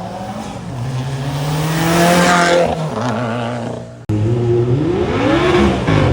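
A performance car's engine accelerating hard as it passes, its pitch climbing and loudest a little past two seconds in before fading. After a sudden break about four seconds in, an engine revs up again in quick rising pulls.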